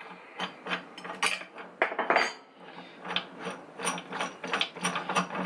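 Spanner being worked on the engine mount bolt of an alloy engine casing: a run of light metallic clicks, scattered at first and then about three a second in the second half.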